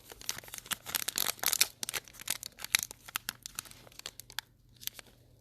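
Wrapper of a Donruss football card pack being torn open and crinkled, a dense crackling that thins out after about three seconds, with a few last crinkles near the end.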